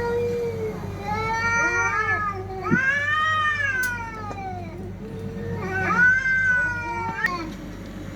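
Cats caterwauling in a fight: long, wavering yowls that rise and fall, with two voices overlapping.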